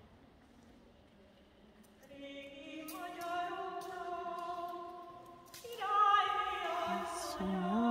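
Voices singing a Marian hymn unaccompanied. They come in about two seconds in, and a new, louder phrase begins a little past halfway.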